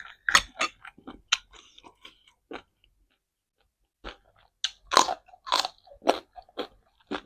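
Close-miked crunching and chewing of raw baby carrot: a few crisp bites at first, a short lull, then a run of louder crunches about two-thirds of the way in.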